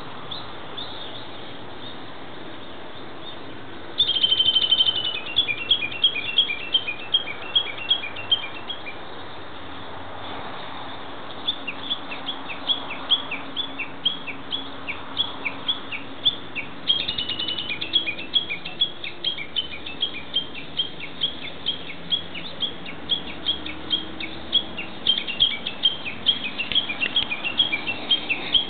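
Japanese bush warbler (uguisu) calling: a held high whistle about 4 seconds in, breaking into a long run of rapid, evenly repeated short notes, and again about 17 seconds in with a longer run, the bush warbler's drawn-out 'kekyo-kekyo' series (tanizatari, the valley-crossing call).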